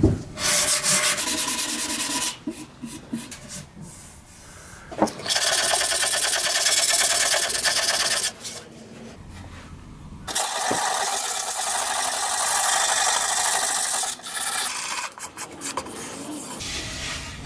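Folded sandpaper rubbed by hand over dried wood filler on a stained wooden panel, in quick scratchy back-and-forth strokes. It comes in three spells of a few seconds each, with quieter pauses between them.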